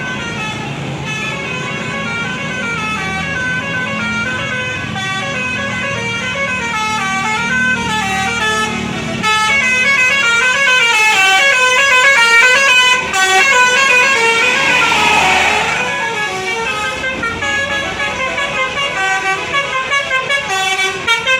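Bus 'telolet basuri' musical horn playing a fast melody of stepping notes. A swell comes about two-thirds of the way in, and the notes turn into quick short pulses near the end.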